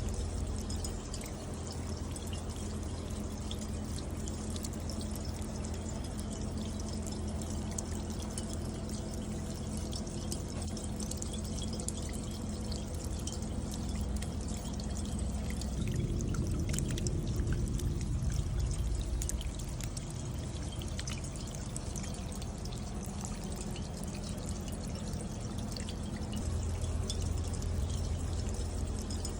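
Rainwater pouring and dripping down a copper bucket rain chain, running from cup to cup with many small scattered drip ticks over a steady low rush of water. The flow swells for a few seconds about halfway through.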